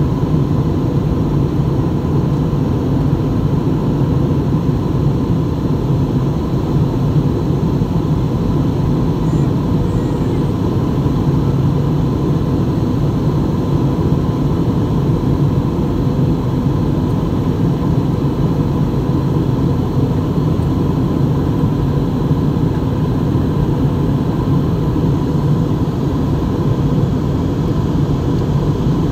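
Steady cabin noise of a jet airliner in flight, heard from a window seat: the dull rush of the engines and airflow, with a faint steady whine.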